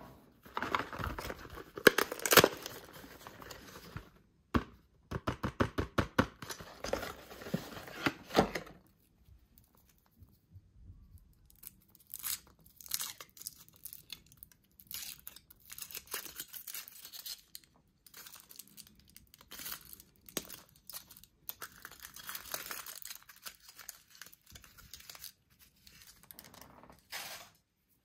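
Kinder Surprise egg packaging being torn open and crinkled by hand. The loudest crackling comes in the first few seconds, then a quick run of clicks, a short pause, and softer crinkling on and off.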